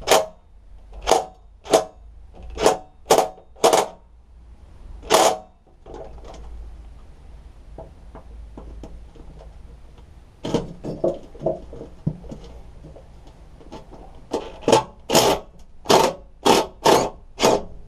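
Cordless DeWalt impact driver run in short trigger bursts to undo the engine mounting bolts on a lawnmower deck. There are about twenty brief bursts in two runs, with a pause of about five seconds between them.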